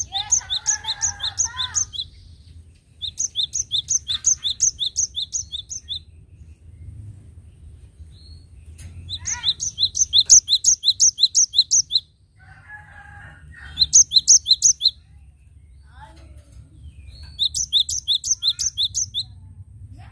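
Cinereous tit (gelatik batu) singing: five phrases of its ringing two-part note, repeated about three to four times a second, with short pauses between phrases. Softer, lower chattering notes come in a couple of the gaps.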